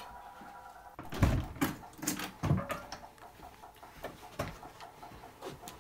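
A quick cluster of sharp knocks and thumps, loudest between about one and two and a half seconds in, then a few softer scattered knocks.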